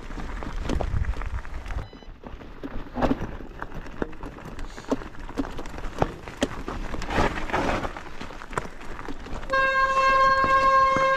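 Rumbling noise with scattered knocks and clicks, then near the end a horn sounds one steady note for about two and a half seconds.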